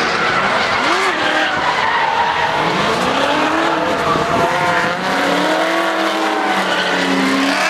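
Drift cars sliding with tyres squealing, their engines revving up and down several times.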